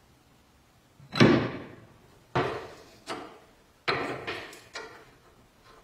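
Rusty cast-iron bread slicer being worked on: a series of about seven sharp metallic clanks, each dying away quickly, the loudest about a second in and a cluster of them later as a wrench works on a rusted nut of its arm.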